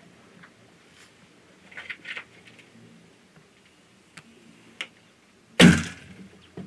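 A recurve bow shot: one sharp, loud thump of the string and arrow about five and a half seconds in, dying away quickly, after a few faint clicks and taps.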